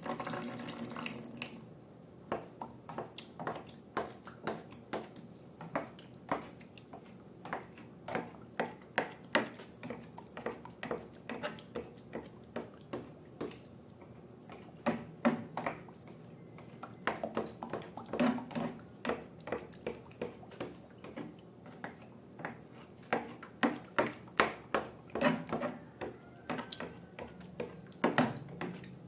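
Wet slime being squeezed and worked by hand: sticky squelches and small wet pops, several a second and irregular, after a brief splashy pour at the start.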